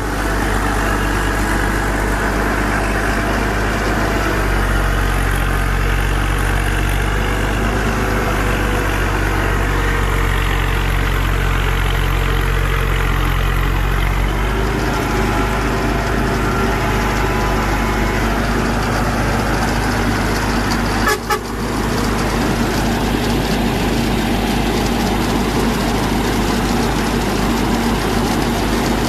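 The engine of a heavy farm machine running steadily as it drives along. Its note shifts a few seconds in and again about halfway, with a brief dip about two-thirds of the way through.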